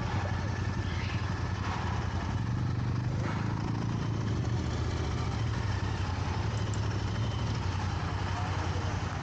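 Royal Enfield motorcycle engine running steadily at low revs, with an even low pulsing beat and no revving.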